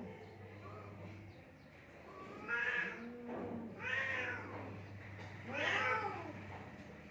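Cats yowling in a fight: three loud, drawn-out yowls that rise and fall in pitch, about a second and a half apart, over a faint low steady hum.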